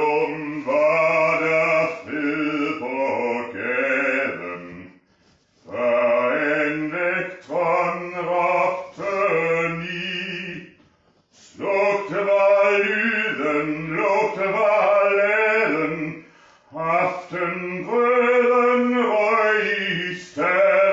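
A man singing unaccompanied in a full operatic voice, in four long phrases with short breaks between them, the held notes wavering slightly.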